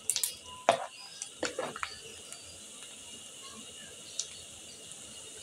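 Cornflour-coated okra strips deep-frying in hot oil: a steady, fairly faint sizzle. A few sharp clicks and knocks come in the first couple of seconds.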